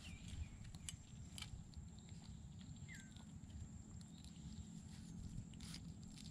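Faint clicks and rustling of hands and a knife working fish bait into a wire-mesh crab trap, over a low wind rumble. Two short high chirps sound just after the start and about three seconds in.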